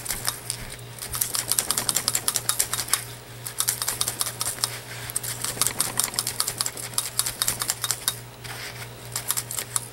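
Felting needles in a multi-needle holder punching rapidly through wool roving into a styrofoam block, a quick run of crunchy clicks several times a second with a few short pauses.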